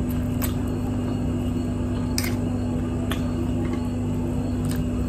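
A person eating spicy instant noodles: slurping and chewing, with a few short sharp clicks of metal forks against the bowl. A steady low hum runs underneath.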